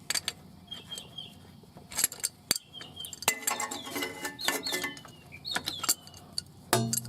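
Metal hand tools clinking and tapping against one another and the transmission as a reverse light switch is worked into its threaded hole, in a series of short sharp clinks, some of them ringing briefly.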